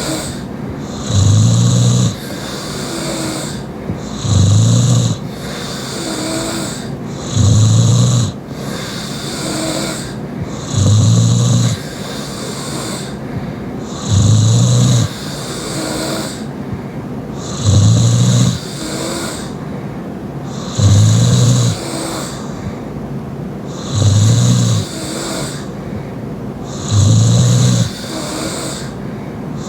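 Young woman snoring loudly through her open mouth: a rough, roughly one-second snore about every three and a half seconds, with quieter breathing between snores.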